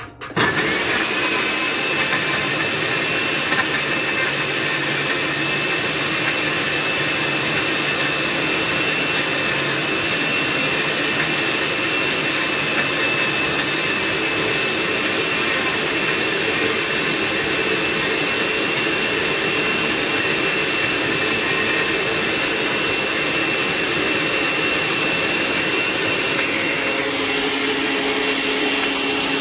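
Electric countertop blender switched on, its motor spinning up at once and running steadily with a high whine, blending chopped ginger into a liquid. The whine shifts slightly near the end.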